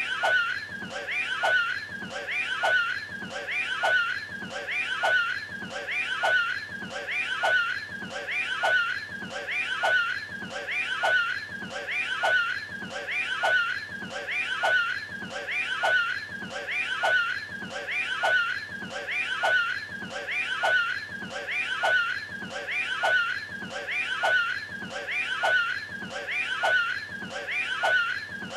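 A man's cartoonish retching and heaving voice, the Cat in the Hat throwing up a hairball, looped so the same short heave repeats about every second and a quarter.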